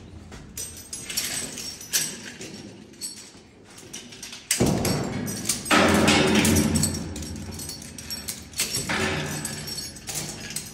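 Climbing and rescue gear being handled: a nylon anchor strap being wrapped into a girth hitch, with irregular knocks and a loud rustle for a few seconds near the middle.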